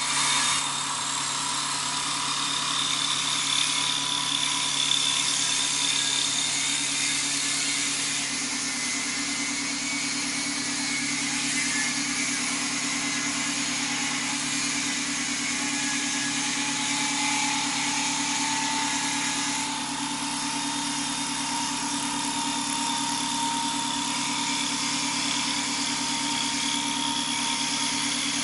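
Automatic wood-turning lathe running steadily: a constant motor hum under the hiss of cutters shaving a spinning wooden dowel into a handle.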